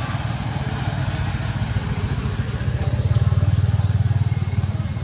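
A small engine idling steadily with a fast, even pulse, swelling louder about three seconds in and easing off near the end.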